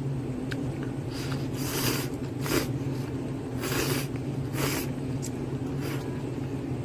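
Instant ramen noodles being slurped from chopsticks in about four short sucking bursts.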